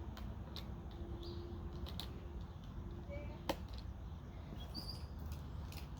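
Box knife cutting and shaving wood: scattered small clicks and scrapes, with one sharper snap about three and a half seconds in, over a steady low rumble.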